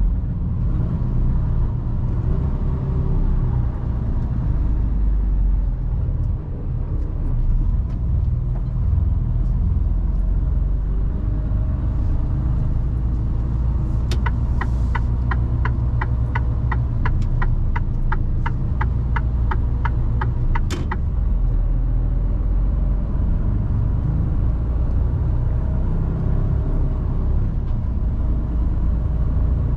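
Mercedes Actros truck's diesel engine running with a steady low rumble heard inside the cab. About halfway through, the turn-signal relay ticks evenly, about three times a second, for some seven seconds.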